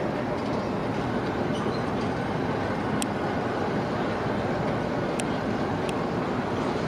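Steady mechanical rumble and noise at a harbour quay, with three short, sharp high clicks about three, five and six seconds in.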